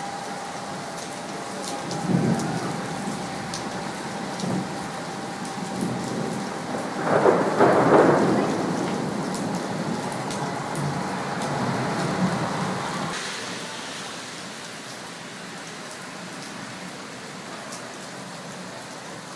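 Heavy thunderstorm rain falling steadily, with rumbles of thunder; the loudest peal comes about seven to eight seconds in. The rain noise eases off after about thirteen seconds.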